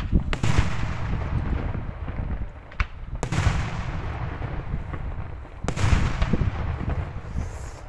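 Daytime fireworks: aerial shells bursting in loud bangs every two to three seconds, each followed by a long rolling rumble, with a sharper single crack just before the second bang.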